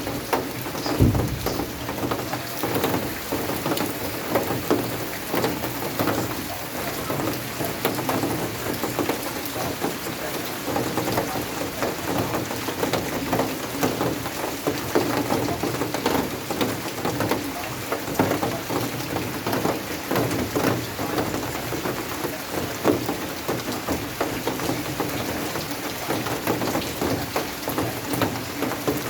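Steady heavy rain, many drops striking hard surfaces in a dense, even rush.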